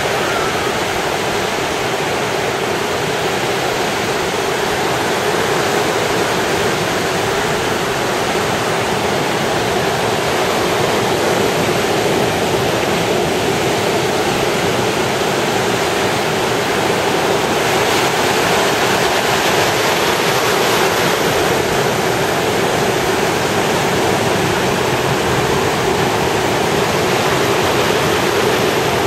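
Surf washing onto a sandy beach as a steady, loud rush of breaking waves, with only slight swells in level.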